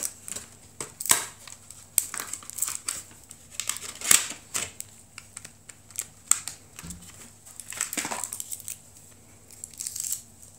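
Plastic packaging crinkling and rustling in the hands as a phone case is unwrapped and lifted out of its clear plastic tray, with irregular crackles, the loudest about four seconds in.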